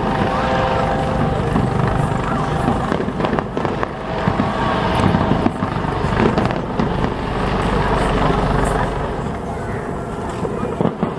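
Fireworks display: shells bursting with sharp bangs a few times, over a steady low rumble and the chatter of a crowd.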